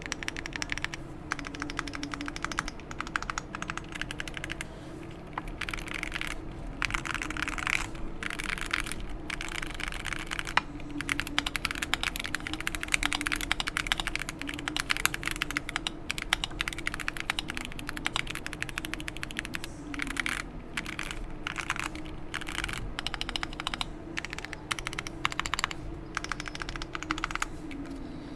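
Bubble 75 mechanical keyboard with stock Gateron Ink Yellow linear switches, EVA foam inside and PBT keycaps, being typed on in fast runs of keystrokes with short pauses between them.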